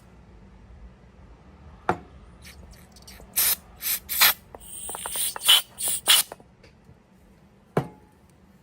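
About six short hissing spray bursts in quick succession, blasted into a ratchet's workings to flush out old grease. A single sharp click comes a second or so before the bursts and another about a second and a half after them.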